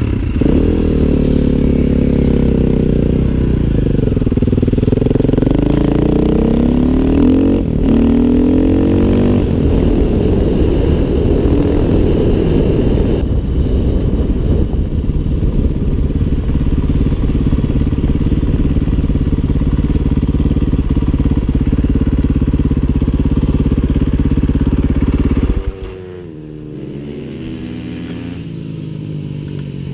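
KTM 500 EXC single-cylinder four-stroke dirt bike engine, heard from on the bike, revving up and shifting through the gears as it pulls away, then running steadily at speed on a gravel road. Near the end the throttle is closed and the engine drops off sharply to a lower, uneven note.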